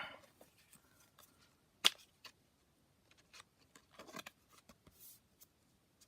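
Faint handling of a trading card and a plastic card sleeve: soft rustling and a few light clicks, with one sharp tap about two seconds in, as the card is slid into the sleeve.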